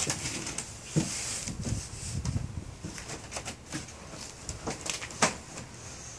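Scattered knocks and clicks from hands-on work on a wooden cat wheel, the sharpest about a second in and another about five seconds in.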